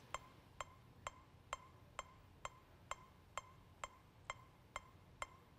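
Metronome clicking faintly and evenly, a little over two clicks a second, setting the pace of the head turns in a vestibulo-ocular reflex test.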